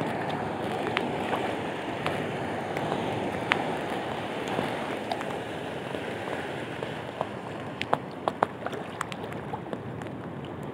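Steady rush of wind and choppy sea water, with scattered sharp ticks that come more often near the end.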